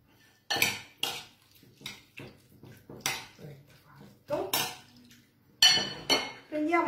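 Kitchen clatter: about a dozen irregular clinks and knocks of dishes, cutlery and a knife against a wooden cutting board.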